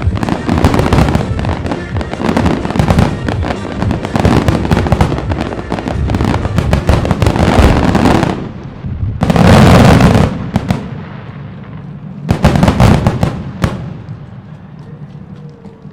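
Aerial fireworks in the grand-finale barrage: a dense, continuous run of crackling bursts and booms for about eight seconds, then two big volleys, dying away near the end. Music plays underneath.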